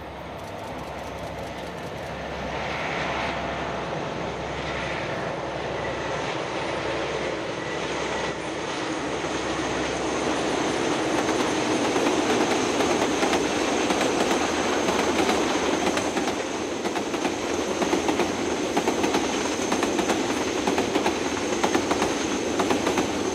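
Diesel-hauled freight train passing: a long line of wagons rolling by with a steady rumble and clatter of wheels on the rails, growing louder.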